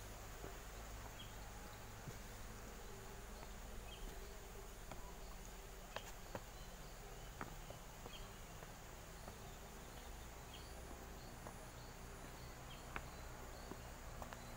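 Faint insects chirping and buzzing: a steady high drone with short repeated chirps, and a few soft ticks.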